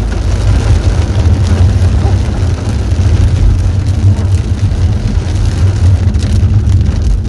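Car running on the road, heard from inside the cabin: a steady low rumble from engine and tyres, with a haze of rain noise over it.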